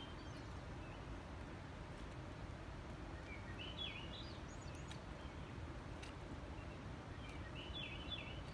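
A small songbird sings the same short, warbled phrase twice, about four seconds apart, faint over a steady low background hush.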